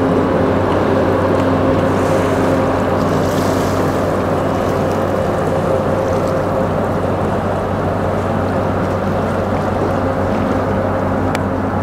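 Steady drone of marine diesel engines, a constant low hum with an even rush of churning propeller wash over it.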